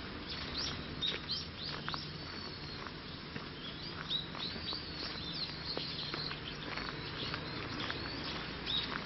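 Small birds chirping in many short, quick calls, over footsteps on a path of wood chips and dry fallen leaves.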